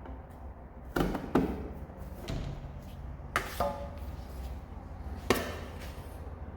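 Putty knife tapping and scraping while spreading lightweight putty over a crack in a door: about six sharp taps, one with a brief ring.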